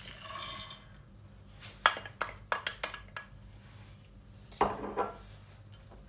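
Mixed dried fruit sliding out of a ceramic bowl into a stainless steel pot, followed by several sharp clinks and knocks of the bowl against the pot, the loudest one near the end.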